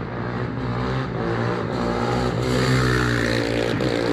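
Motor vehicle engines revving and accelerating past on the street. The sound builds to its loudest about three seconds in, then fades as the pitch drops.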